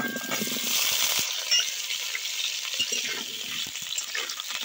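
Potato chunks sizzling as they fry in hot mustard oil in a steel kadai, with a few taps of the bowl and spatula against the pan.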